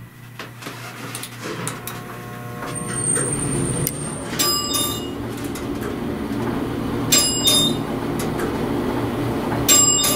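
Elevator car travelling down, a steady running rumble building up over the first few seconds, with the cab's original floor-passing chime dinging three times, about two and a half seconds apart, as it passes each floor.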